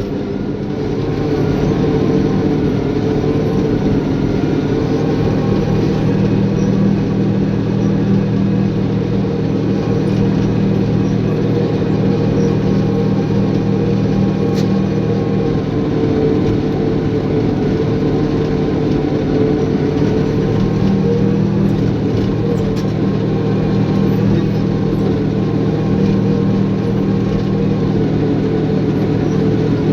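Caterpillar bulldozer's diesel engine running steadily at working revs, a deep, even drone.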